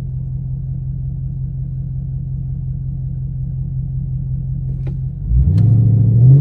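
A 2018 Dodge Charger R/T's 5.7-litre Hemi V8 running steadily at low revs. About five seconds in it is given throttle and accelerates, the engine note rising and getting much louder.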